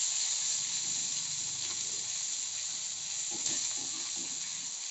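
Chopped tomatoes and green chillies frying in hot oil in a metal kadai, sizzling steadily with an even hiss as they are stirred.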